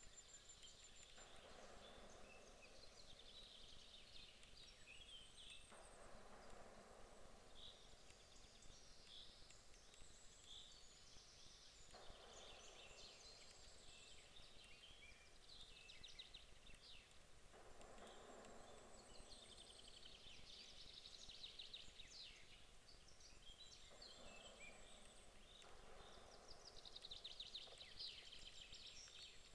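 Faint birdsong: several small birds chirping and trilling on and off, over a quiet outdoor background with a soft rushing noise that swells up every few seconds.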